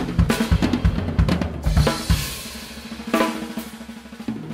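Drum-led closing music: a fast run of drum hits, then two crashes that ring and fade.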